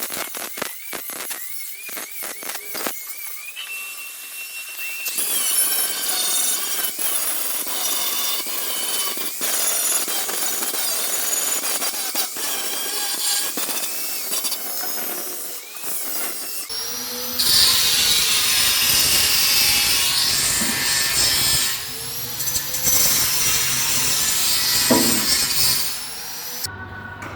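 Power tool working on a Vespa PX's steel body panel, running in long stretches with some clicking early on and getting louder and denser about two thirds of the way through.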